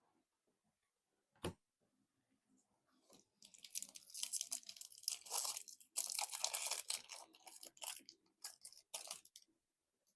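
Foil wrapper of a Magic: The Gathering collector booster pack being torn open and crinkled. The crackling comes in two stretches with a short break between, after a single click about a second and a half in.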